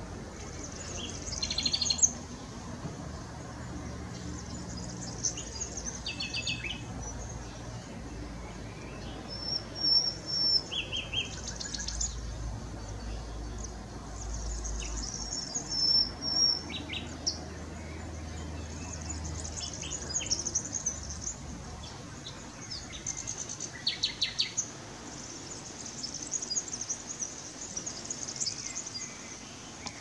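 Nightingale singing: short phrases of rapid repeated notes and clear high whistles, separated by pauses of a second or two.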